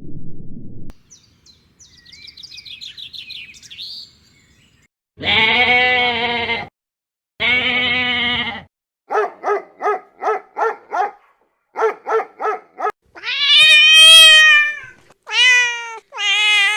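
A sequence of farm-animal calls with cuts between them. First comes a faint, high chirping warble. Then two long bleat-like calls, two quick runs of short pulsed calls, a loud long call that rises and falls, and two shorter calls near the end.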